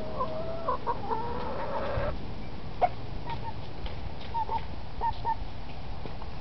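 Backyard hens clucking: a longer wavering call in the first two seconds, then short scattered clucks. A single sharp click about three seconds in.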